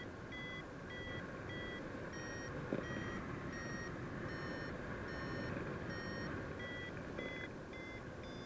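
Paragliding variometer beeping in short, evenly spaced tones, about one and a half a second, the pitch shifting slightly from beep to beep: the climb tone that signals rising air. Wind rushes over the microphone beneath it, with a single knock a little under three seconds in.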